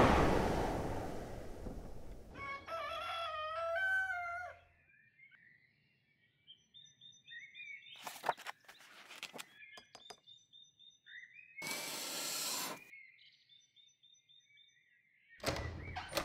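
A rooster crowing once, followed by small birds chirping in short high calls on and off. Two brief bursts of rushing noise come in the middle, and a rushing sound fades out at the start.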